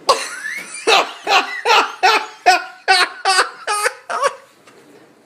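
A person laughing hard: a quick run of about ten loud "ha" bursts over some four seconds, dying away near the end.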